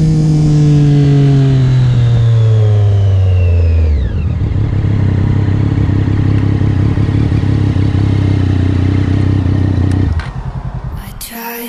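Triumph Daytona 675's three-cylinder engine through a Racefit slip-on exhaust, loud, its revs falling steadily for about four seconds and then holding steady until it stops about ten seconds in. Music starts near the end.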